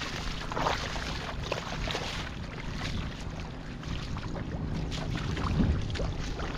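Scattered short splashes and rustles in water and weeds over a steady low rumble of wind on the microphone.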